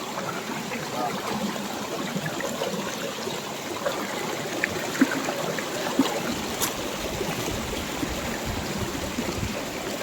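Steady rush and trickle of a waterfall stream running over rocks, the flow fairly low, with a few small sharp clicks around the middle.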